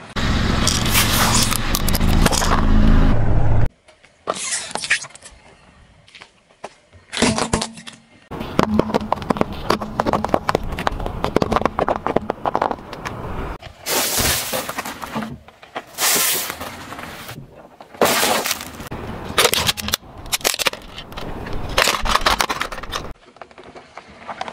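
Small objects cracking and crunching under a car tyre as it rolls over them, in a string of separate crushing takes that each start and stop abruptly.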